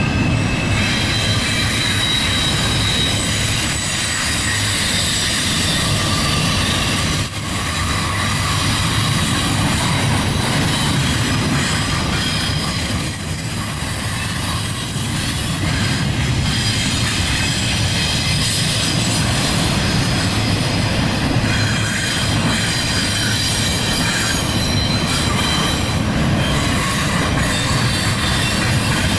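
Double-stack intermodal freight cars of a CSX train rolling past close by: a steady rumble of steel wheels on rail, with steady high-pitched tones above it.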